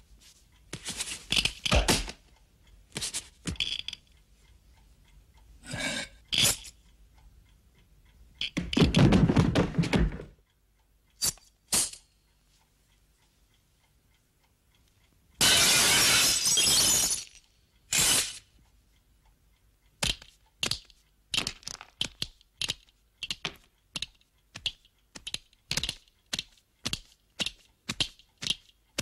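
Film sound effects: a series of sharp cracking, breaking and crunching noises and a longer rushing scrape about halfway through. About two-thirds of the way in a steady ticking starts, two to three ticks a second, like a clock.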